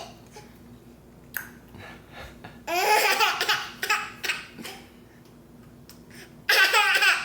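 A baby laughing in two long, high-pitched bursts, one about three seconds in and another near the end, with short sounds in between.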